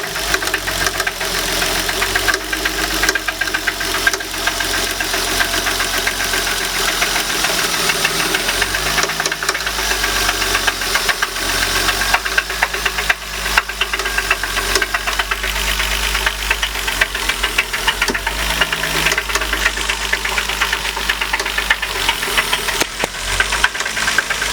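BMW M50 inline-six engine running steadily with a knock, which the owner puts down to the VANOS variable valve timing unit.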